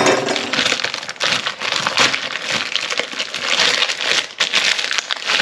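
Thin plastic bag around a raw whole chicken crinkling and tearing as it is pulled open and the chicken is worked out of it, a dense run of crackles.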